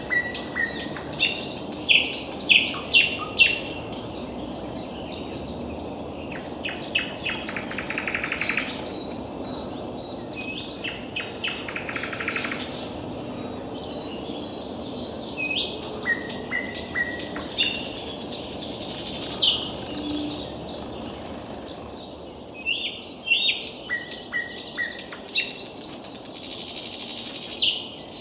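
Thrush nightingale singing a long run of varied phrases: whistled notes, sharp clicks and fast rattling trills. Under the song runs a steady low rush of wind.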